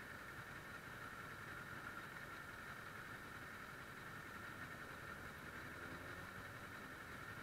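Faint, steady idle of a Kawasaki ER-6's 650 cc parallel-twin engine with the bike standing still, under a steady hiss.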